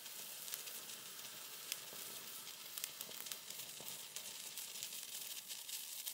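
Hexamine dinitrate mixed with sodium chloride burning with a yellow flame: a faint, steady hiss with many small crackles.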